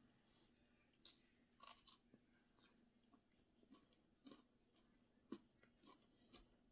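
Faint mouth sounds of a person eating rice by hand: soft chewing and a scatter of small irregular clicks, the loudest a little past five seconds in.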